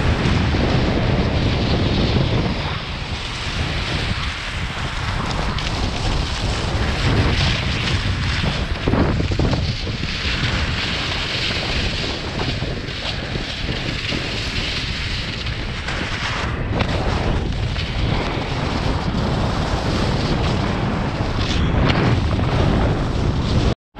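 Wind buffeting a GoPro's microphone while skiing downhill, a loud, steady rush with heavy low rumble, mixed with skis hissing and scraping over packed snow.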